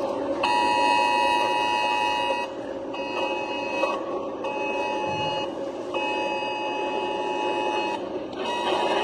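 Electronic alarm sounding in about five long steady tones, each one to two seconds with short breaks, over a steady background rumble.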